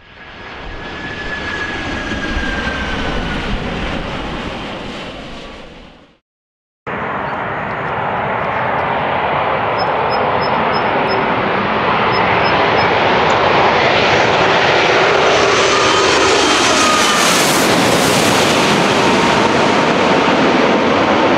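Jet airliner engines run for about six seconds with a whine sliding down in pitch, fading out into a brief cut of silence. Then a Boeing 787's turbofans on final approach grow louder and peak as it passes close by, their whine sliding down in pitch as it goes past.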